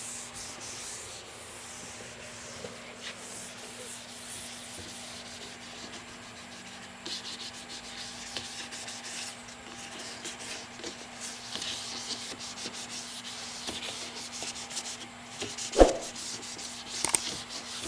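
Sandpaper rubbing over a car body panel in repeated scratchy strokes, with a faint steady hum underneath. A single sharp knock sounds near the end.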